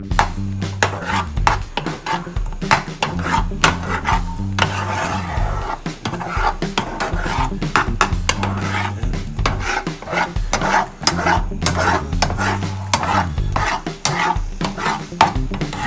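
Slotted spatula scraping and stirring scrambled eggs with tomatoes and onions in a frying pan, a quick irregular run of scrapes against the pan, over background music.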